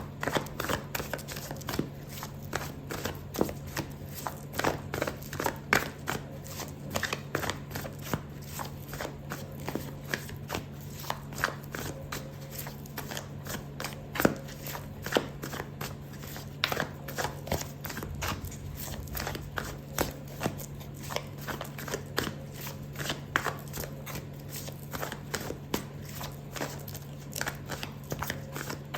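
Tarot deck being shuffled by hand: a continuous run of quick, irregular card flicks and taps. A steady low hum sits underneath.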